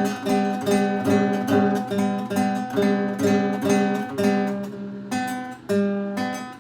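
Acoustic guitar strummed in a steady rhythm, the same chord repeated about three times a second, with the strums slowing and spreading out near the end.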